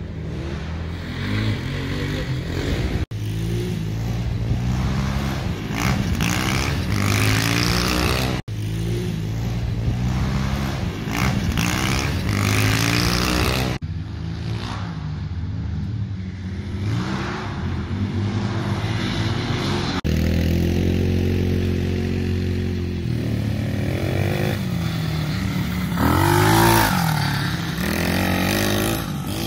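Small off-road engines, a four-wheeler and a dirt bike, running and revving. The sound breaks off and changes abruptly several times. In the last part the engine pitch rises and falls, loudest a few seconds before the end.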